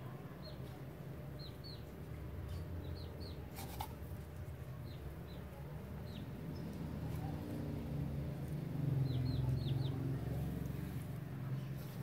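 Small birds chirping in short, quick downward notes, often in runs of two to four, over a steady low hum that grows louder past the middle; a single sharp click a little before four seconds.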